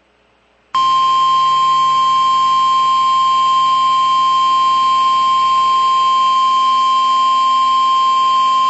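Emergency Alert System attention signal from a weather radio broadcast: a single steady high tone that starts about a second in and holds without a break, announcing an incoming National Weather Service tornado warning.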